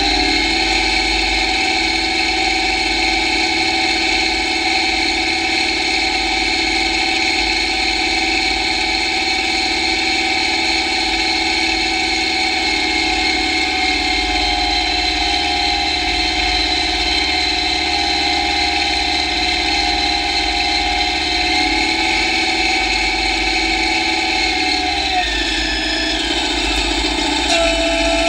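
John Deere tractor engine running steadily under way. Its pitch rises slightly at the start, drops about three seconds before the end, then picks up again just before the end.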